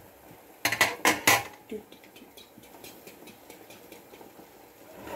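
Metal-rimmed pot lid set back down on a cooking pot: a quick run of metal clinks about a second in, then quiet.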